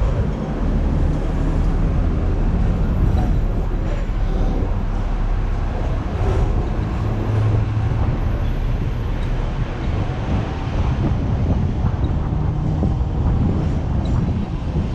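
Hong Kong double-decker electric tram running along the street, a steady low rumble of its motors and steel wheels on the rails, mixed with the noise of city traffic around it.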